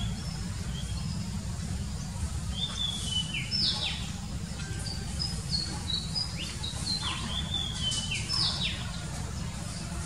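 Oriental magpie-robin singing: a varied run of clear whistled notes and sharp downward-sweeping phrases, strongest from about two seconds in, over a steady low rumble.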